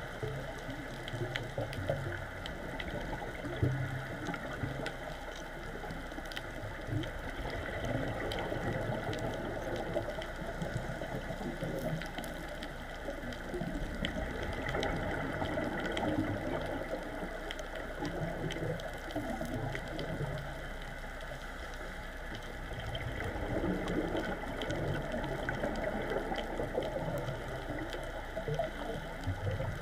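Underwater ambience picked up through a camera housing on a coral reef: a steady muffled wash with a low rumble that swells and fades, and many faint scattered clicks.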